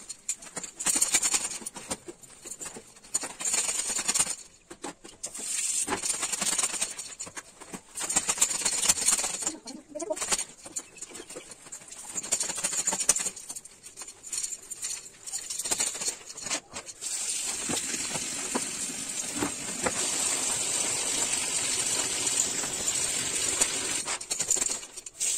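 Clothes being washed by hand in plastic buckets: wet cloth squelching and being squeezed, with water splashing and dripping in uneven spells. After about two-thirds of the way through, the water sound turns steadier.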